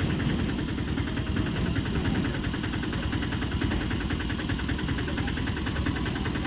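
Auto-rickshaw engine idling steadily with an even, rapid beat.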